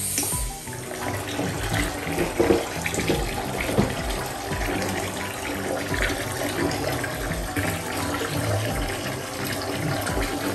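Bath water running and splashing steadily, with a few brief louder splashes.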